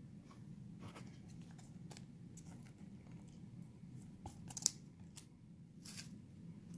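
Faint handling noise of trading cards being shuffled and moved by hand: soft slides with a few light clicks and swishes, most of them a little past halfway, over a low steady room hum.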